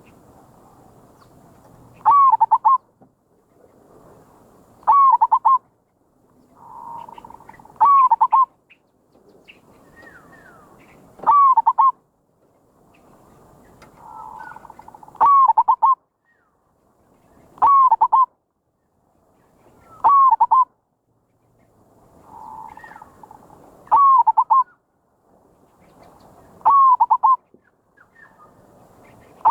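Zebra dove (merbok) cooing. A short phrase of quick, bending notes repeats about ten times, roughly every three seconds, with faint noise between the phrases.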